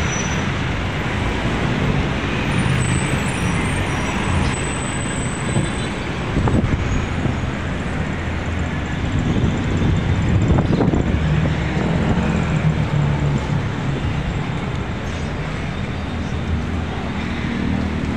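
Busy city street traffic: engines of jeepneys, buses and cars running and passing in a steady wash of road noise.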